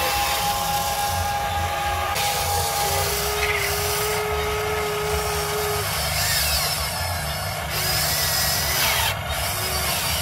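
Huina 580 RC hydraulic excavator's electric hydraulic pump whining steadily while the arm and bucket dig into soil, its tone shifting and sliding in pitch as the arm moves.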